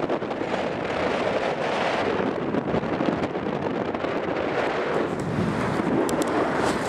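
Airflow buffeting the microphone of a camera carried on a paraglider in flight: a steady, even wind rush. A few faint clicks near the end as the camera is handled.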